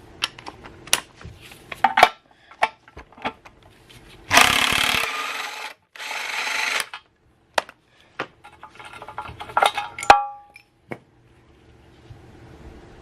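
Hand-tool clicks and metal knocks while the bolts of a worn engine mount are undone. About four and six seconds in come two short bursts of a power ratchet running, and near ten seconds a metal part gives a brief ringing clink.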